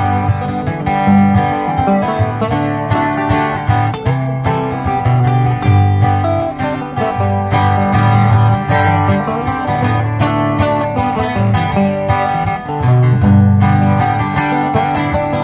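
Instrumental guitar break in a country/bluegrass song: an archtop guitar picks a quick melody over a strummed steel-string acoustic guitar rhythm.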